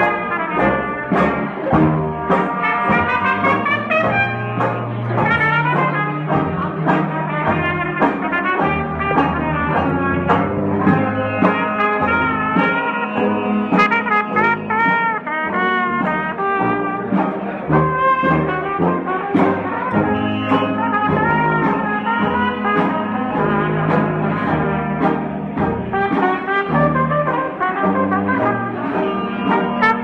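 Traditional jazz band playing live in full ensemble: trumpet and trombone leading the melody over sousaphone bass, banjo rhythm and bass drum.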